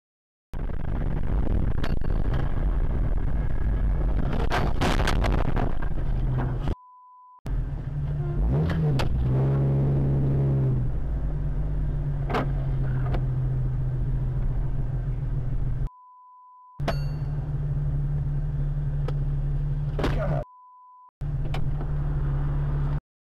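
Steady road and engine noise inside a moving car, recorded by a dashcam, with a cluster of sharp bangs about five seconds in and a low held tone around ten seconds. Three short beep tones, at about seven, sixteen and twenty-one seconds, censor words.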